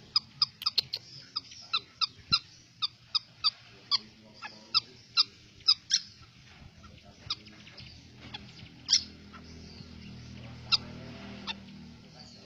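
White-breasted woodswallows (kekep babi) calling with short, sharp chirps, quickly at first, about two or three a second, then more sparsely in the second half.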